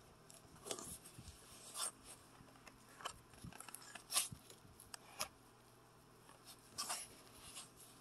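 Faint handling noise from a plastic-cased Sharper Image Travel Soother SI621 radio alarm clock being turned over in the hands: scattered light clicks and rubs at irregular intervals, the sharpest click about halfway through.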